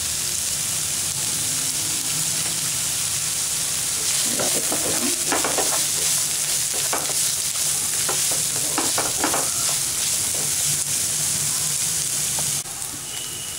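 Chopped onion, ginger, garlic and green chillies sizzling in a little oil in a non-stick frying pan. From about four seconds in, a wooden spatula scrapes and stirs them in a run of short strokes. The sizzle drops quieter near the end.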